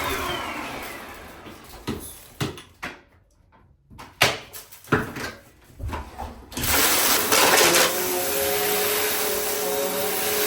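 Bissell CleanView compact vacuum cleaner's motor winding down with a falling whine after being switched off. Then come a few knocks and clicks of handling, and about two-thirds of the way in the motor starts up again and runs steadily.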